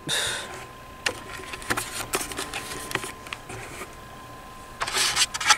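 A short burst of rustling, then irregular light clicks and taps that bunch together near the end, over a faint steady high tone.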